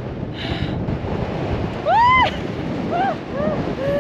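Wind buffeting the microphone while riding a bicycle, a steady rushing noise. About two seconds in, a woman's wordless voice gives one strong call that rises and falls, followed by a few shorter ones near the end.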